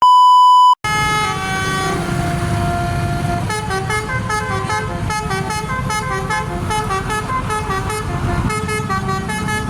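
A short, steady electronic beep, then a bus's multi-tone telolet air horn playing a melody: long held notes at first, then a quick run of changing notes from about three and a half seconds in, over a low rumble.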